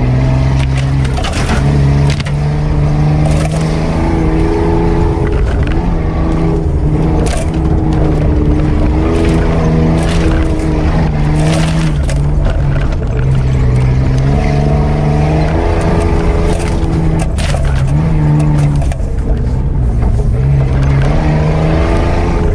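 Mitsubishi Pajero 3.0 L V6 engine pulling over a rough dirt track, heard from inside the cabin, its revs rising and falling again and again with throttle and gear changes. Occasional knocks and scrapes break in over the bumps.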